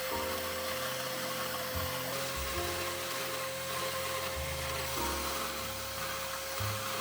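Bandsaw cutting steel knife blanks: a steady whine with an even cutting hiss, under background music with a shifting bass line.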